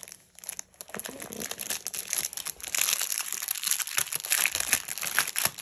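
Clear plastic sleeve crinkling and crackling as hands pull it open and work a pouch out of it. It grows louder and busier a little over halfway through.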